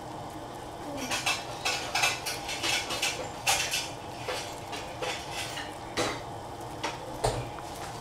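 Dishes and metal utensils clinking and clattering: a quick run of clicks and clanks for a few seconds, then a handful of single knocks, over a steady low hiss.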